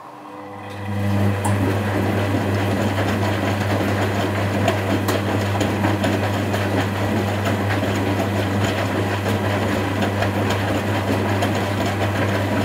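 Constructa Contura front-loading washing machine running: a steady low hum that comes up over about the first second, with a rushing mechanical noise over it.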